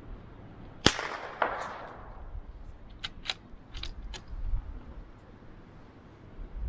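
A single scoped rifle shot about a second in, echoing across the range. A run of fainter sharp clicks follows around three to four seconds in.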